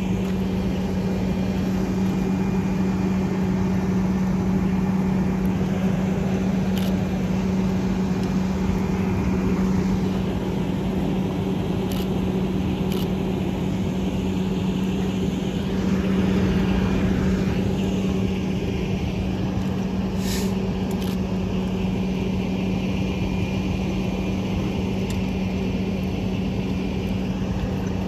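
A fire engine's engine runs steadily to drive its pump for the hose line, a constant drone with a strong even hum. A few short sharp pops come through it at scattered moments.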